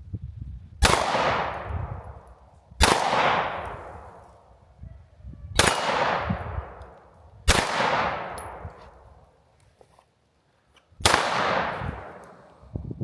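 Five slow, aimed shots from a Sig P365 X Macro 9mm pistol, each followed by a ringing clang from a hit steel target that fades over a second or two. The shots come about two seconds apart, with a longer pause before the last.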